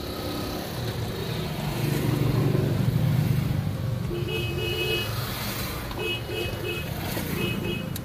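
A motor vehicle rumbling past, swelling to its loudest about halfway through and then easing off. There are three short bursts of quick repeated tones in the second half.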